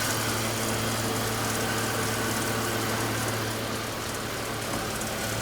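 2001 BMW X5 3.0's inline-six engine idling steadily with a low hum, running on freshly changed oil while it is checked for leaks.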